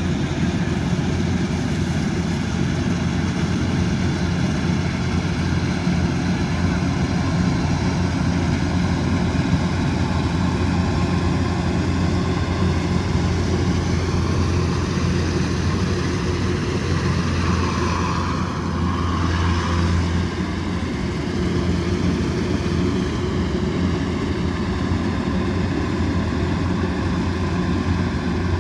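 Kubota DC108X combine harvester running steadily under load, its diesel engine and threshing machinery giving a continuous low drone with a hiss above it; the sound shifts briefly about two-thirds of the way through.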